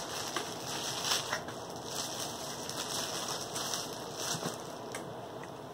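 Packaging rustling and crinkling, with a few light clicks and taps, while a Wyze bathroom scale is unpacked and handled.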